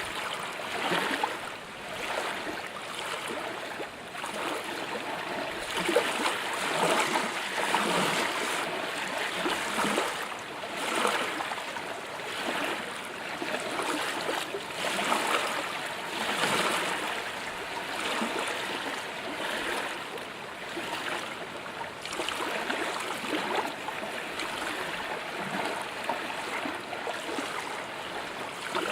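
Water lapping against a boat's hull: a continuous wash of water with uneven small splashes coming every second or two.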